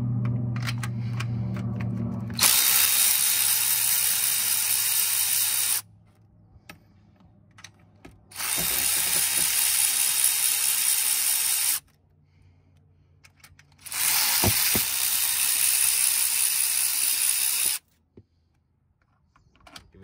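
Power ratchet running in three bursts of about three and a half seconds each, with short pauses between them, as it spins out valve-cover bolts.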